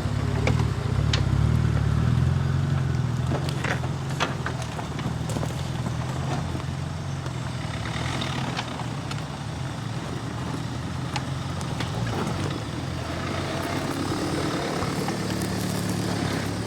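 Off-road vehicle's engine running steadily at low revs, with scattered light clicks and knocks.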